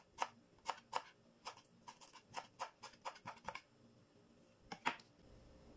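Kitchen knife chopping fresh dill on a wooden cutting board: a run of about a dozen quick, sharp taps of the blade on the board, a short pause, then two more taps about a second before the end.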